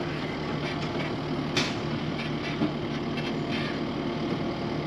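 Kubota compact track loader's diesel engine running steadily as the machine drives forward up onto a trailer deck. A single sharp clank comes about one and a half seconds in.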